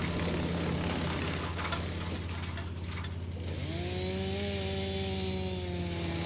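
Wood chipper running, its engine droning steadily underneath, with wood crunching through for the first half. About halfway through a whine rises in pitch and settles into a steady hum.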